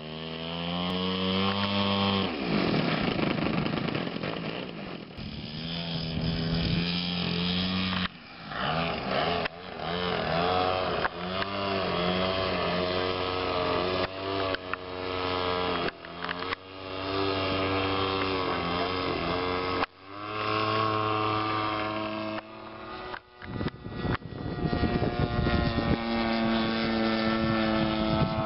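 DLE-55 single-cylinder two-stroke gasoline engine of an EG Aircraft MX-2 model aerobatic plane running, its pitch rising and falling over and over as the throttle is worked, with a few sudden jumps in pitch.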